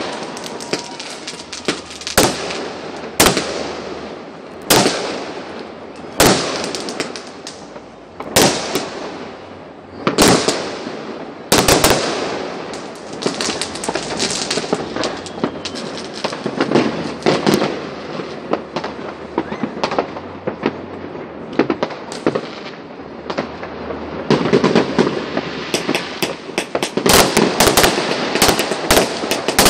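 Aerial fireworks bursting: sharp bangs every second or two, each trailing off, then quicker, denser cracking and a fast run of bangs near the end.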